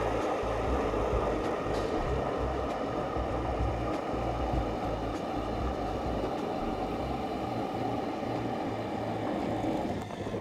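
A 40-volt lithium-battery electric ice auger drilling a hole through lake ice. A steady motor whine runs under the grinding of the lightweight synthetic bit cutting and throwing up ice chips.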